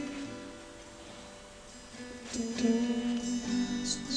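Guitar music, quieter for a second or so near the start and fuller again a little past the middle.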